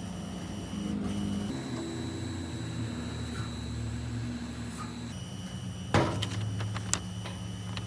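A steady low electrical or machine hum, changing abruptly twice. A sharp metallic knock comes about six seconds in, and a lighter one a second later.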